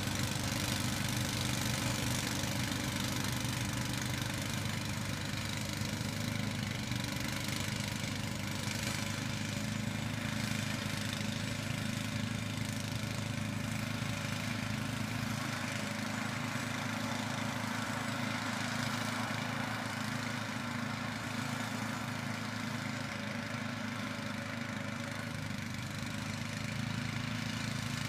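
Case 644 garden tractor's engine running steadily under load, driving a front-mounted snowblower as it throws snow.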